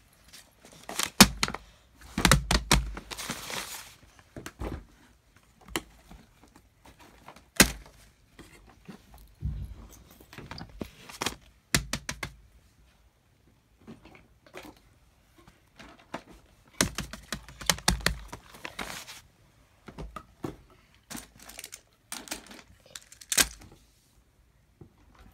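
Fidget toys being handled and set down on a paper sheet over carpet: scattered knocks and clicks, with a few short bursts of paper rustling.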